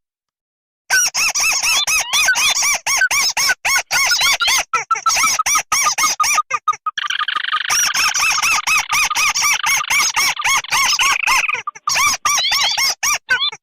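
Crake calls from a bird-lure recording that mixes tikusan merah and tikusan putih: a fast run of short, squeaky, arched notes, several a second. From about halfway through to near the end, a denser, higher chattering overlaps the notes.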